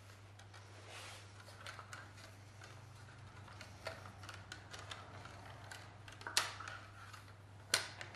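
Small clicks and rustles as a black wiring loom is handled and pulled away from a stripped engine block, with two sharper knocks about six and a half and seven and a half seconds in.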